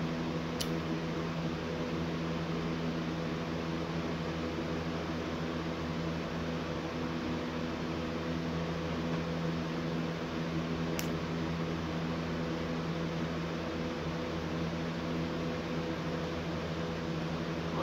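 Steady mechanical hum with several steady tones over a hiss, from a machine running in the room. Two sharp clicks, about half a second in and about eleven seconds in, as small plastic Lego pieces are pressed together.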